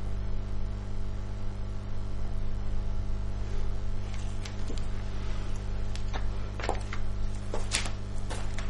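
Soft background music over a steady electrical hum, with a run of sharp clicks or ticks starting about four seconds in and getting louder near the end.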